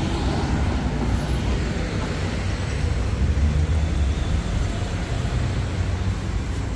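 Road traffic on a busy city street: cars and other motor vehicles passing in a steady low engine and tyre rumble.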